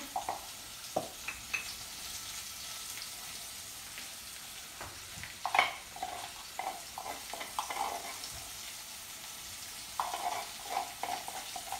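Tomatoes and garlic frying in a steel pot with a steady, soft sizzle. Over it come scattered wooden knocks and taps from the mortar and spoon against the pot, the loudest about halfway through and a quick run of them near the end.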